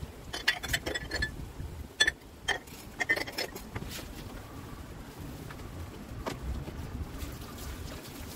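Washing up by hand in a plastic basin of soapy water: scattered clinks and knocks of cups and a plastic drainer tray with water sloshing, thickest in the first few seconds and once more near the end. A steady low rumble runs underneath.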